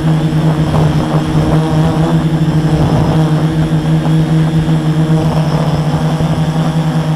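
450-size quadcopter's brushless motors (Multistar 2212 920kv) and 10x4.5 propellers running steadily in flight, a loud, even buzz with a strong low hum, picked up by a camera mounted on the frame.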